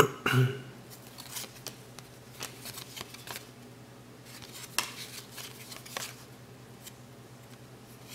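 Cardboard trading cards being flipped through by hand, each card slid off the stack with a soft click or snap, a second or so apart. A faint steady low hum sits underneath, and there is a short louder sound right at the start.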